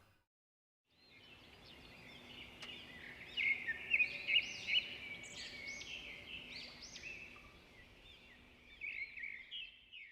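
Birds chirping and singing, many quick overlapping calls, starting about a second in and cutting off suddenly at the end.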